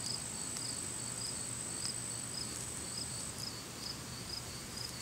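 Insects calling: a steady high trill that stops about three seconds in, over a short chirp repeating a couple of times a second.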